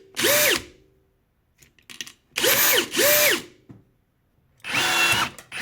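Cordless rivet gun's electric motor driving its pulling mechanism in short whirrs, mostly in pairs, each rising in pitch, holding, then falling. The repeated strokes come while setting 5 by 16 mm aluminium rivets, which are too long for the Parkside gun's stroke.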